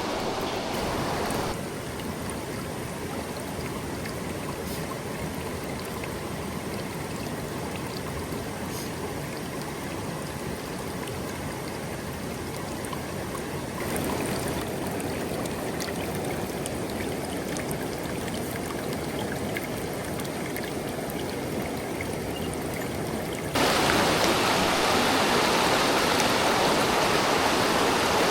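Mountain stream water rushing steadily. Its loudness changes abruptly three times and is loudest near the end.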